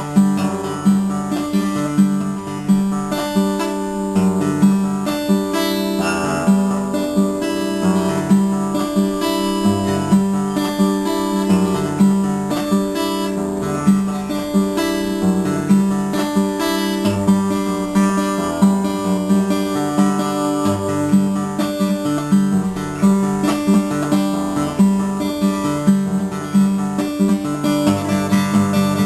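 Solo steel-string acoustic guitar, fingerpicked: a steady repeating bass pattern under plucked melody notes.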